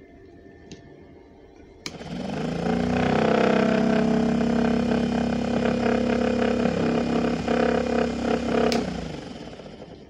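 Salvaged washing machine motor run on 24 volts from two batteries in series: a click about two seconds in, then it spins up with a rising whine and runs steadily at speed. A second click comes near the end, and the motor winds down.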